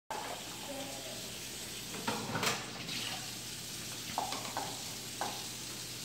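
Plastic cups and dishes knocking against a dishwasher's wire rack as they are loaded: a few short clatters, the loudest about two seconds in, over a steady hiss.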